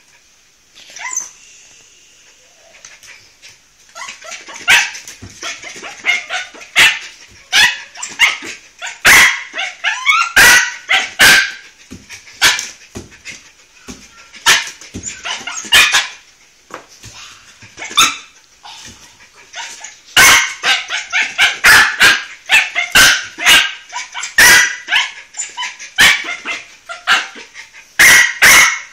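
A silky terrier barking over and over in short, sharp, high yaps, with whining between them, demanding something it wants from the desk. After a quiet first few seconds the barks come thick and fast, in rapid clusters.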